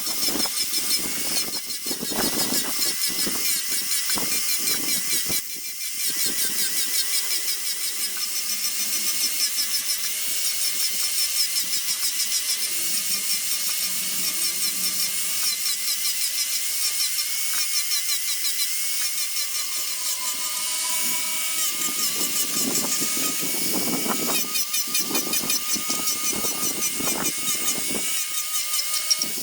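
A power tool runs steadily with a constant whine as it cuts into Chinese toon wood, easing off briefly about six seconds in.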